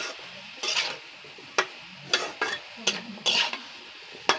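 A long metal spatula stirring cubed pumpkin in a steel wok: short knocks and scrapes against the pan about every half second, two of them longer scrapes, over a faint sizzle of frying.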